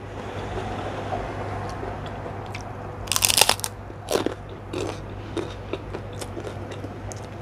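A person biting into a crisp kerupuk cracker with one loud crunch about three seconds in, then chewing it with softer crunches.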